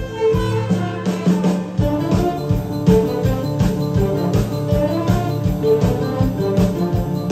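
Live symphony orchestra of student strings and percussion playing an upbeat piece, with bowed strings carrying the tune over a steady drum beat that grows busier about two seconds in.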